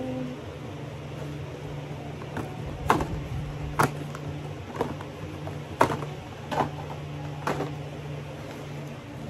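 Plastic toiletry bottles knocking together as they are set down one by one into a fabric storage basket: a series of sharp clicks about once a second over a steady low hum.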